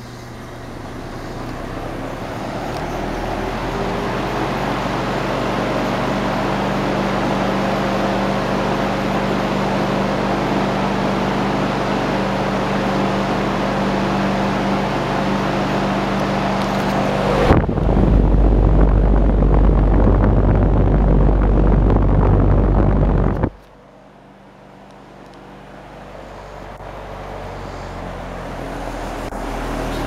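Kenmore automatic box fan running: a steady rush of air from the blades over a low motor hum, swelling over the first few seconds. For about six seconds in the middle a much louder low rumble takes over and cuts off suddenly, after which the fan's sound is quieter and builds up again.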